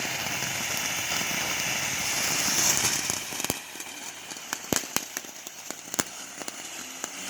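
Consumer firework hissing steadily as it sprays, then going off in a scatter of sharp pops and crackles from about halfway through.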